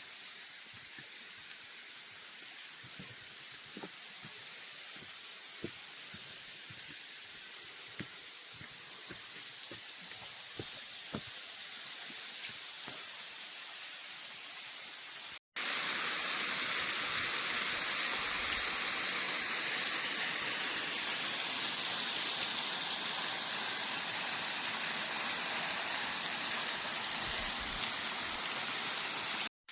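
Waterfall: the steady rush of falling water, with a few faint drips or ticks. About halfway through, the sound cuts to a second, louder and fuller rush of water.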